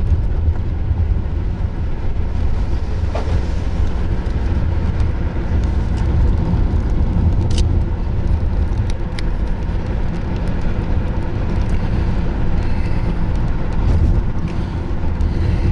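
Road and engine noise inside a moving car's cabin: a steady low rumble, with a few brief sharp clicks about halfway through.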